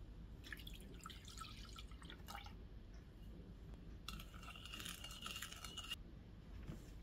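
Ingredients poured into a glass mixing bowl for a couple of seconds. Then, about four seconds in, a wooden spoon stirs the milk-and-yeast mixture for about two seconds, scraping and clinking against the glass with a faint ringing.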